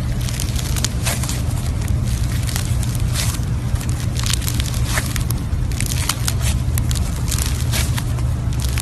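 Slime being worked by hand, giving a dense, irregular run of clicking, crackling pops over a steady low hum.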